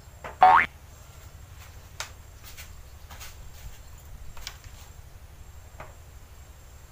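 A short rising squeak about half a second in, then a handful of sparse light clicks and taps from plastic chess pieces being set down and a person shifting on a bamboo slat platform.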